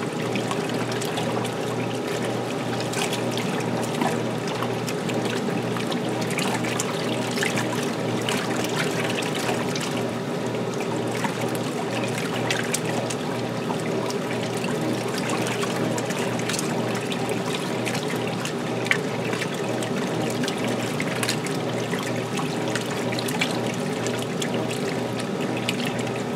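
Maytag LA806 top-load washing machine mid-cycle: water pouring and splashing in the tub over a steady machine hum, with a few small ticks.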